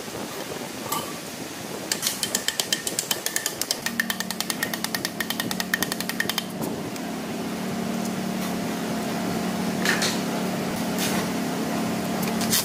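A power tool hammering rapidly, about eight strokes a second, for several seconds. A steady low machine hum starts about four seconds in and keeps going.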